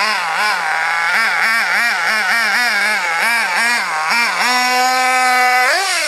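Hobao Hyper ST truggy's Mac28 nitro engine, tuned slightly rich, revving in quick throttle blips of about three a second. Then it is held at a steady high pitch and climbs sharply near the end as the truck takes off over a jump.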